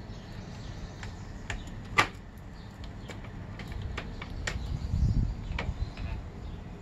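Scattered metallic clicks and light knocks as the kick start lever of a 2006 Honda CRF250R is handled and fitted onto its shaft, with one sharp click about two seconds in and a dull thump around five seconds.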